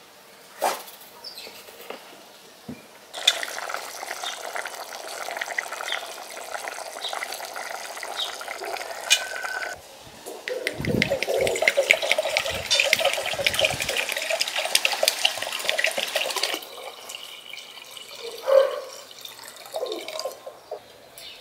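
Water poured from a clay jug into a glass bowl, splashing in two spells, the second louder and fuller, then stopping. Before it, a few faint clicks of a knife peeling potatoes.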